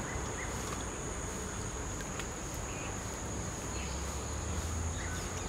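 Insects buzzing steadily on one high tone, with a low rumble underneath that grows stronger about four seconds in.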